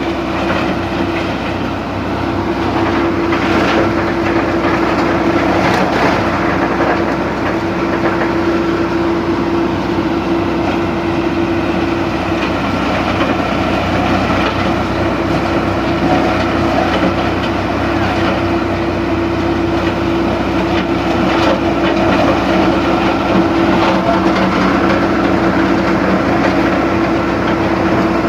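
Large wood root crusher running under load, a loud steady machine hum with a constant tone and grinding noise, broken by occasional sharp cracks as wood breaks up.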